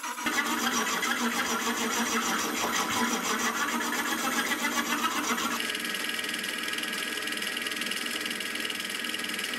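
Sieg X2.7L benchtop milling machine cutting metal: a dovetail cutter running along the side of a block in the vise, a steady cutting noise with a fine even rhythm over the spindle's hum. About halfway in the sound changes abruptly to a steadier, smoother cut as a larger cutter works the top of the part.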